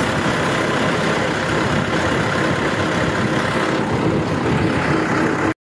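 Tractor's diesel engine running steadily, a dense continuous rumble that cuts off suddenly near the end.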